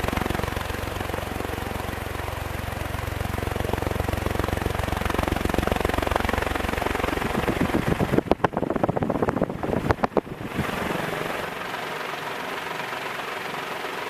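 Montgomery Ward Evergo industrial ceiling fan (Model E-3) running: a steady motor hum with the rush of the spinning blades. About eight seconds in comes a run of rapid thumps lasting a couple of seconds, after which the low hum is fainter.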